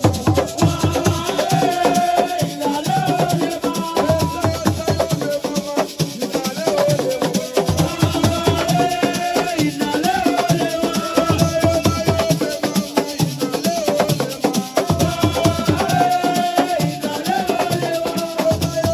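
Live assiko music: dense hand drumming with a shaker rattling steadily, and a singing voice in repeated phrases over it.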